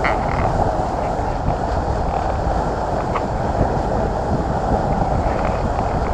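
Steady rumble of a small passenger boat under way, its engine and the rushing water mixed with wind on the microphone.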